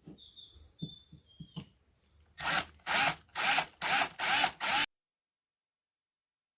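Power drill run in five short bursts about half a second apart, after a few faint clicks and squeaks.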